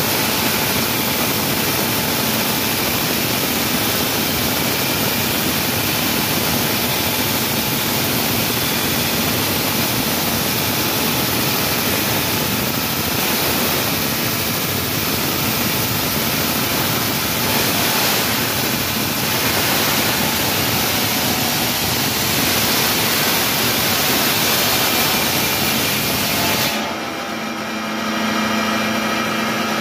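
Wall saw cutting through a wall: a loud, steady grinding noise. About 27 seconds in the grinding stops abruptly, leaving the machine's steady motor hum.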